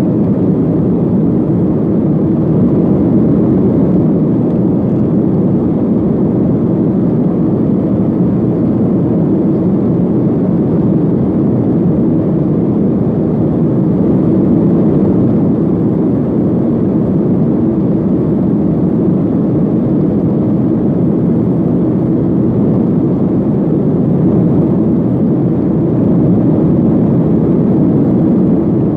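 Steady cabin noise inside a Boeing 737-500 in flight: the even, low rush of its CFM56-3 turbofan engines and air streaming past the fuselage, unchanging in level.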